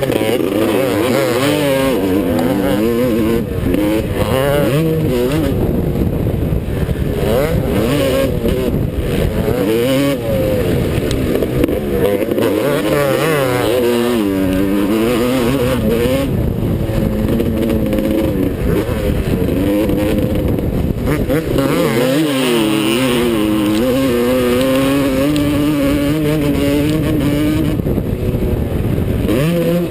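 Two-stroke motocross bike engine, a 2008 Suzuki RM250, revving up and falling back again and again as the throttle is worked through the gears, with a steady rush of wind or air noise.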